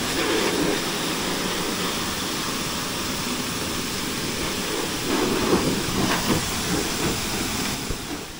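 Small consumer pressure washer spraying a high-pressure jet of water against a UTV's wheel and body panels: a steady hiss of spray and splashing water that stops near the end.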